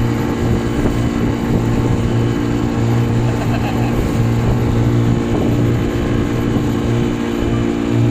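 Fishing boat's engine running steadily under way, a constant low drone with rushing noise of wind and water over it.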